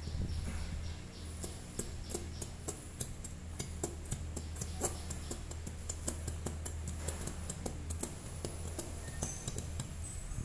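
A plastic squeeze bottle of chili sauce being squeezed out onto a saucer, making many irregular sharp clicks and sputters. Soft background music and a low steady hum run underneath.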